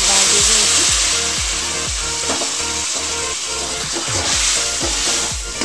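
Water poured into a hot kadai of fried potato masala, sizzling hard in the first second or two and then settling into a steadier sizzle as a steel spoon stirs it through.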